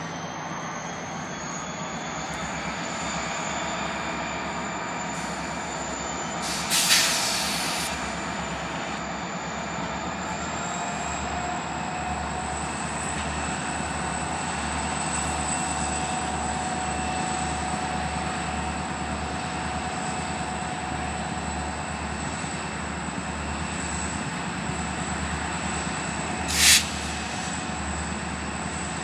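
Three EMD SD40-2 diesel locomotives working hard as they pull a loaded grain train at low speed: a steady, heavy diesel engine drone. Two short, loud hisses break through, about seven seconds in and again near the end.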